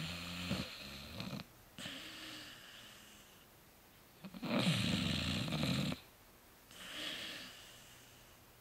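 Sleeping dog snoring in slow breaths. A loud snore dies away at the start, followed by a fainter one; a second loud snore comes about four seconds in, followed by another fainter one.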